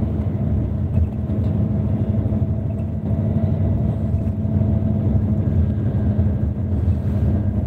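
Intercity bus cabin noise while driving on the highway: a steady low rumble of engine and tyres, with a faint steady hum over it.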